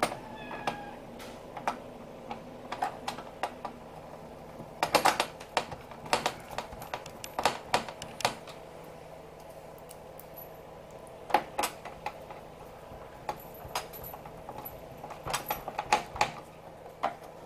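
Irregular small clicks and taps of plastic and metal computer parts and screws being handled and fitted into place during reassembly of an all-in-one PC, coming in short clusters.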